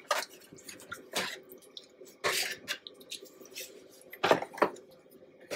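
A spoon working gravy and sliced onions and peppers in a foil roasting pan: a handful of short, wet splashes and scrapes at irregular moments.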